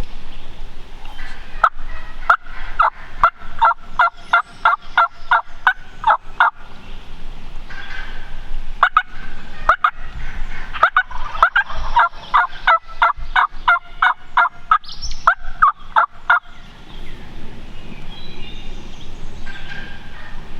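Turkey calling: two long runs of short, sharp yelp-like notes repeated a few times a second, the first speeding up as it goes, the second coming a couple of seconds later.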